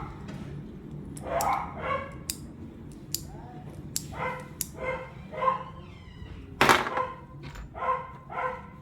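A small dog barking in about eight short, high-pitched yaps, in groups. Sharp clicks fall between the barks, with one loud clack about two-thirds of the way through.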